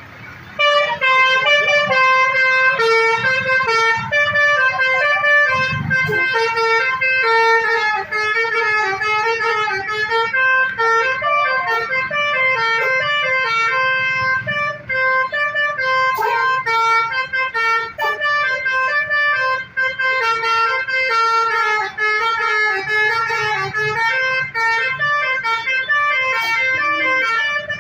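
A bus's basuri melody horn playing a long tune: a string of held, stepping notes that starts about half a second in.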